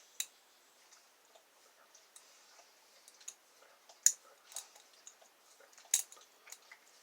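Small sharp metallic clicks and faint scraping of a thin lock pick and tension wrench working the pins inside a Master Lock 576 padlock, with the loudest clicks about four and six seconds in.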